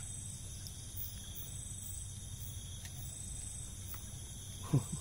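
Night insects chirping: a steady high-pitched trill with a pulsing call repeating about every second and a half. A brief low sound comes near the end.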